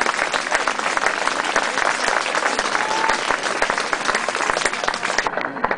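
Crowd applauding, with a short whistle about three seconds in; the clapping drops away shortly before the end.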